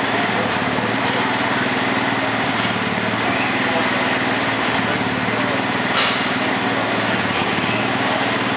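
Small lawn and garden tractor engine idling steadily at an even pitch. A short sharp click about six seconds in.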